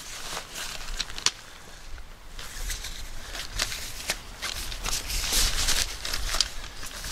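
Captain Stag EXGEAR tent fabric rustling and crinkling as it is pressed down into its carry bag, with short scrapes and a longer stretch of rustling, likely the bag being zipped shut, about five seconds in.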